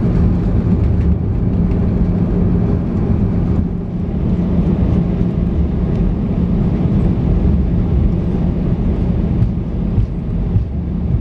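Cabin noise inside an Airbus A319 rolling along the runway just after landing: a loud, steady rush of engine and rolling noise with a low hum.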